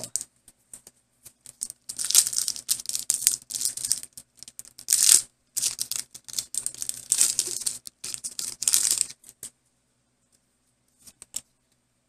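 Foil wrapper of a Pokémon trading card booster pack torn open by hand, crinkling and ripping in a run of bursts over about seven seconds, loudest near the middle. A couple of faint clicks follow near the end.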